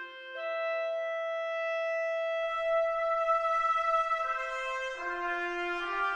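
Slow instrumental background music of long held brass notes, the chord changing every second or two.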